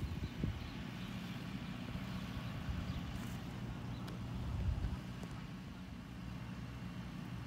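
Steady low engine hum of road traffic, with a couple of low thumps near the start and about four and a half seconds in.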